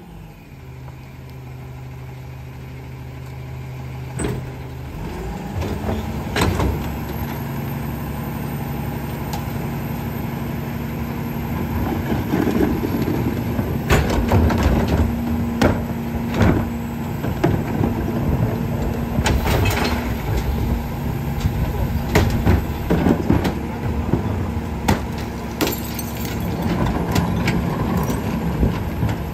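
Peterbilt rear-loader garbage truck's diesel engine idling, then running faster about six seconds in as the New Way packer's hydraulics work the compaction cycle. Repeated bangs and clatter as recycling carts are knocked against the hopper lip and emptied.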